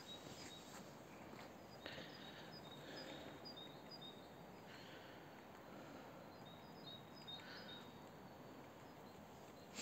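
Faint forest ambience: small birds give short high chirps again and again in the distance, with a few soft rustles.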